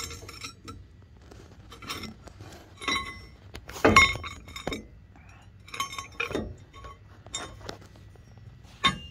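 Irregular metallic clinks and knocks with short ringing tones as metal mounting pieces are handled; the loudest knock comes about four seconds in.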